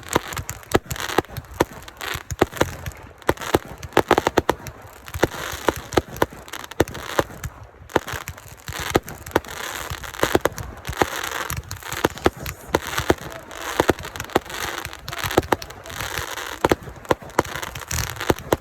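Fireworks going off: a rapid, irregular string of sharp pops and bangs over a continuous crackling.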